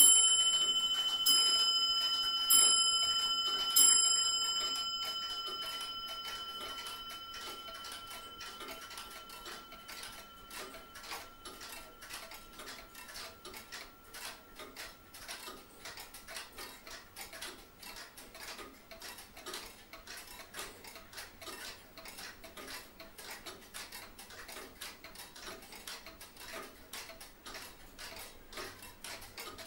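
A bell strikes four times at even intervals of a little over a second, its ringing fading away over several seconds. This gives way to a faint, steady ticking like a clock.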